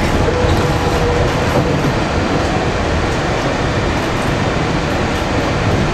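Walt Disney World monorail running, heard from inside the car as a steady rumble of motors and wheels, with a faint whine that fades about a second in.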